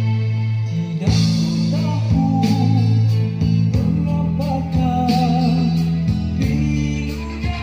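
Rock song with singing and guitar, heavy in bass, played back through a VINNFIER Hyperbar 500BTR Bluetooth soundbar and its subwoofer at half volume, recorded on a phone.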